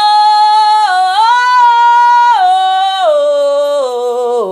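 A solo voice sings a long, drawn-out 'oh' in a worship song. The note steps up about a second in, then falls in several steps over the last two seconds.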